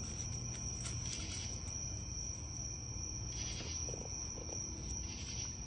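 Steady insect chorus: a continuous high-pitched trill that never lets up, over a low background rumble, with a few faint ticks.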